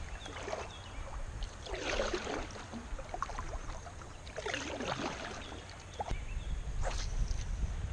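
Double-bladed kayak paddle dipping and pulling through the water on alternating sides. There are four splashy strokes, about one every two seconds.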